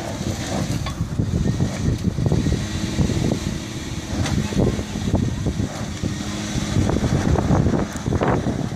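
Kia Sportage II's engine running hard under load as the SUV struggles up a dirt slope, with its tyres scrabbling and crunching on loose dirt and stones in irregular bursts. The car is losing traction because a wheel is not touching the ground.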